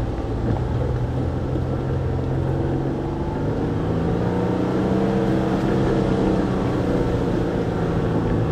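Jeep's engine running under load as it crawls over trail rock, its note rising a little about halfway through, then easing slightly near the end.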